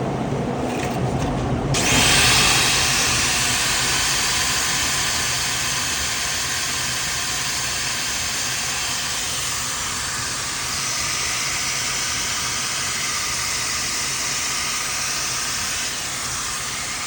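Vacuum cleaner motor running: a low hum, then the sound jumps sharply about two seconds in to a steady, loud airy hiss that holds, as the motor runs up to full speed.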